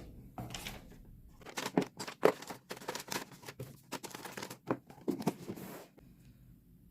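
Hair trimmer and its packaging being handled: a string of short clicks, taps and rustles, stopping about six seconds in.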